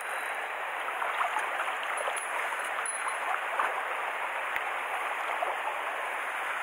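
Mountain stream water running steadily, with a few faint short ticks over it.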